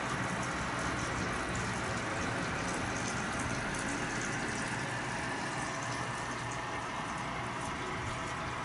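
Steady rushing, bubbling water noise with a low hum underneath, unchanging throughout.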